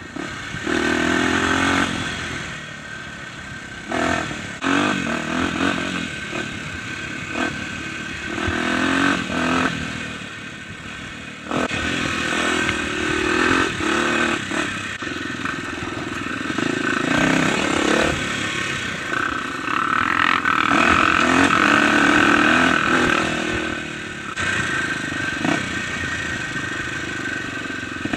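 Dirt bike engine revving up and easing off again and again with the throttle while riding a rough trail, with scattered knocks and rattles as the bike crosses bumps.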